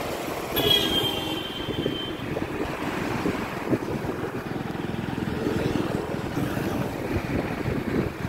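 Wind buffeting the microphone on a moving motorbike, with engine and road noise rumbling underneath. A brief high-pitched tone sounds about half a second in and lasts over a second.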